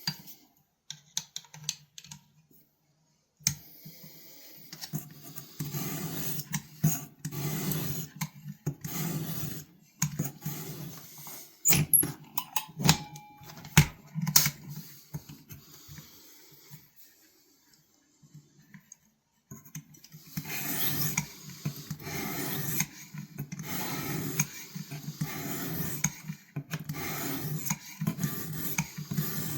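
Repeated scraping and rubbing strokes with light clicks and taps from hand work on a pocket knife's blade, typical of sharpening or polishing. The strokes pause for a few seconds in the middle.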